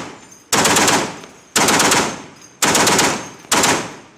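M2 Browning .50-calibre heavy machine gun firing four short, loud bursts about a second apart, each ringing out and fading before the next.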